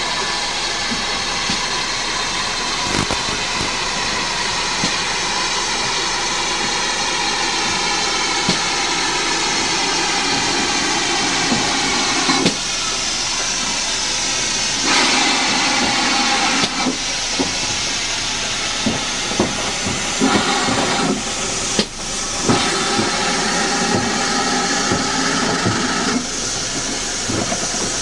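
Steam locomotive, the GWR 'Earl' class 4-4-0 No. 9017, hissing steam loudly and steadily as it runs in slowly and stands, with a few sharp metallic knocks.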